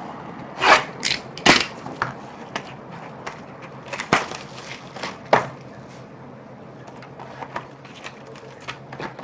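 Cardboard trading-card box being handled and opened by hand on a table: several sharp clicks and knocks of the box against the table and fingers, then softer rustling and scraping for the last few seconds.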